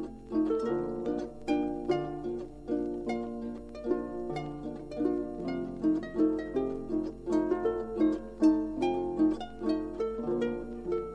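Solo harp playing a cheerful Tyrolean folk tune in quick plucked notes over a bass line, played back from a 1961 45 rpm vinyl record. A faint steady low hum runs underneath.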